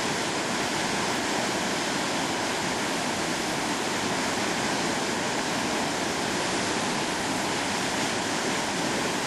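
Pisew Falls, a wide waterfall on the Grass River carrying heavy white water, making a steady, unbroken rush.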